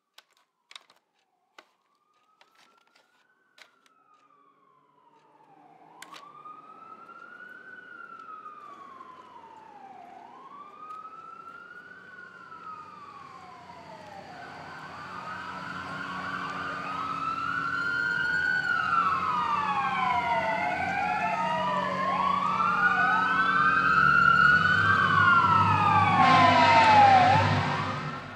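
Emergency vehicle sirens wailing in slow rising and falling sweeps. They begin faint about five seconds in and grow steadily louder as more sirens join and overlap over a low rumble, then cut off suddenly near the end. A few faint clicks come before the sirens begin.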